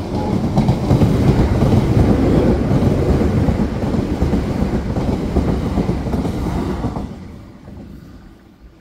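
Great Western Railway Intercity Express Train passing close by at a level crossing: a loud rumble of wheels on rail that swells as the train arrives, holds while the carriages go past, and fades away as the last carriage clears, about seven seconds in.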